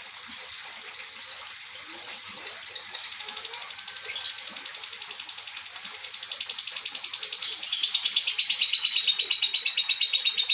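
An old lovebird singing one long, unbroken, high-pitched chattering trill made of rapid pulses, growing louder about six seconds in.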